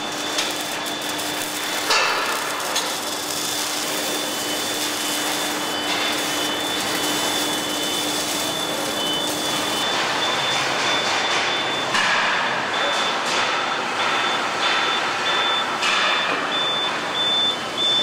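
Steady machinery noise of a bus body-shop hall, with a thin high whine that in the second half gives way to a run of short electronic beeps, like a moving vehicle's warning beeper. A few louder knocks stand out, one about two seconds in and another a little past the middle.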